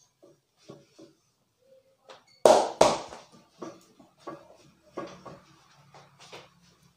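Hands striking a person's back during a massage: a run of irregular pats and slaps, the two loudest coming close together about two and a half seconds in.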